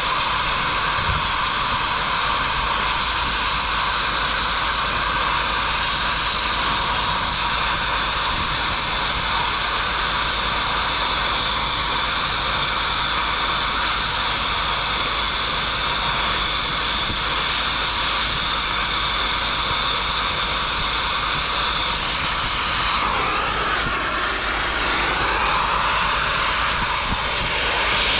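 Cutting torch flame hissing steadily as it cuts through steel scrap, with a change in its tone about 23 seconds in.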